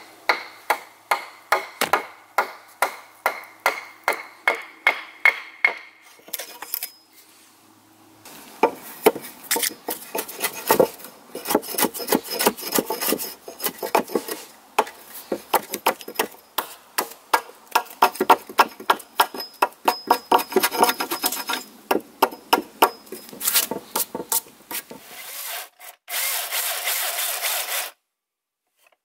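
Hand axe, choked up near the head, chopping and paring a tenon on a red alder log in short strokes, about three a second at first, then a faster, denser run of strikes and shaving. Near the end a Milwaukee chainsaw cuts into the log for a couple of seconds, then the sound stops abruptly.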